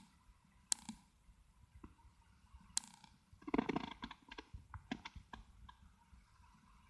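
Light handling noise: a few sharp separate clicks, then a busier patch of small clicks and rubbing about halfway through.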